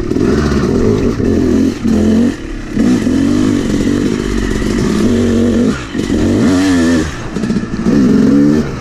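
Yamaha YZ250X two-stroke single-cylinder engine revving up and down as the throttle is worked while riding, with quick rises in pitch in the second half.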